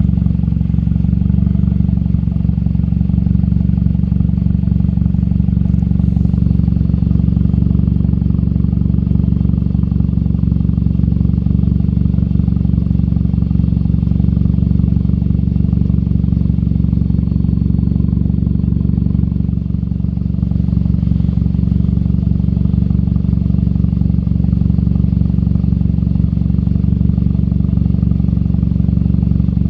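2008 Dodge Caliber SRT-4's turbocharged 2.4-litre four-cylinder engine idling steadily, loud and low-pitched.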